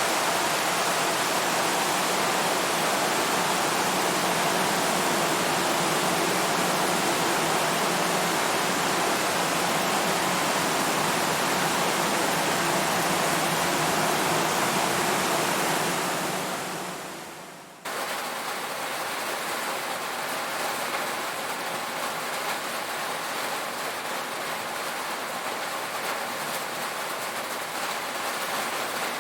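Rain falling on a tin roof, a dense steady hiss. About two-thirds of the way through it fades out over a couple of seconds, then cuts in suddenly to another stretch of rain, a little quieter and more grainy.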